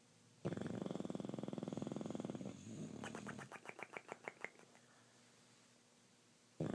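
English bulldog snoring in his sleep: a long rattling snore begins about half a second in and lasts some two seconds, followed by a fluttering run of quick pulses, about eight a second. After a short pause the next rattling snore starts near the end.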